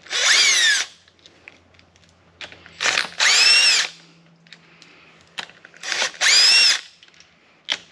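Cordless impact wrench run in three short bursts about three seconds apart, its motor whine gliding up and down each time as it spins off nuts that have already been broken loose.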